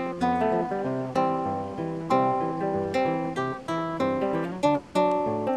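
Background music: acoustic guitar, plucked notes and strums that ring and fade.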